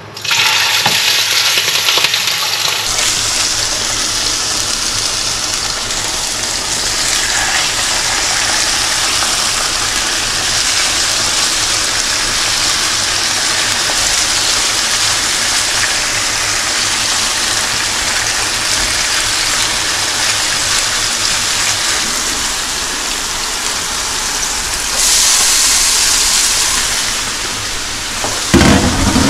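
Largemouth nannygai fillets frying in hot oil in a frying pan: a loud, steady sizzle that starts suddenly as the fillets go in, flaring brighter for a couple of seconds near the end.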